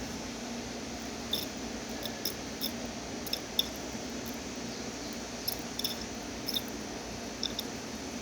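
Breville BES830XL espresso machine running its steam function: a steady low hum from the pump, broken by about a dozen short, high squeaks scattered through.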